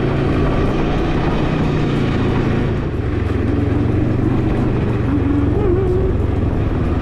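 Can-Am Ryker three-wheeler's engine running steadily at low speed while it is ridden slowly.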